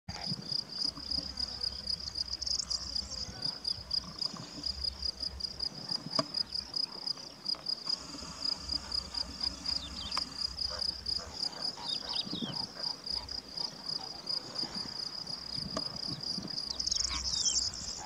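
A cricket chirping steadily in the grass, a high pulsing trill at about four pulses a second. A few short falling bird calls come through, and a low rumble comes and goes underneath.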